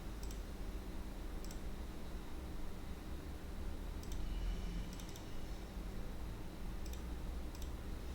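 Sparse clicks of a computer mouse, about seven, a few close together around the middle, over a steady low hum.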